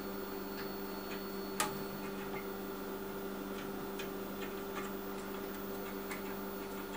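Small irregular clicks and ticks from the leveling knobs under a MakerBot Replicator 2's build platform being turned by hand, with one sharper click about one and a half seconds in. A steady low hum runs underneath.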